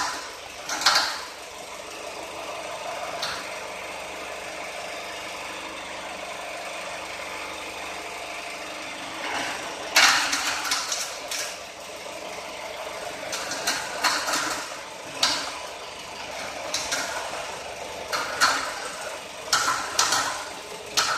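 Coconut shell peeling machine running steadily, with loud short scraping and cracking bursts every few seconds as the shell is stripped from the coconut meat.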